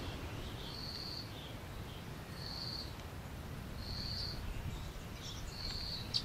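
A high, steady call repeated regularly, each note about half a second long and coming roughly every second and a half, with fainter short chirps between, over a low outdoor rumble.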